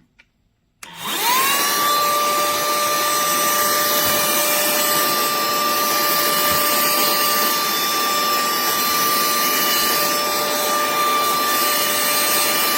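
Cordless handheld mini car vacuum switched on about a second in. Its motor spins up quickly and runs steadily with a high whine over a rushing hiss.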